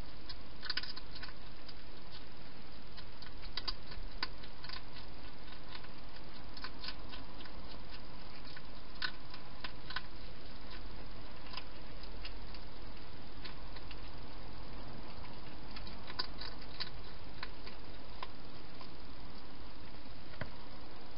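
A hedgehog eating from a bowl inside a plastic feeding box: irregular crunching and sharp clicks, in small clusters, over a steady hiss.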